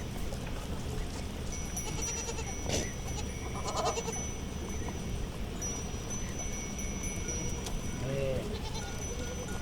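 Goats bleating, one call about four seconds in and another near the end, over steady high ringing from bells on the herd and a sharp click near three seconds.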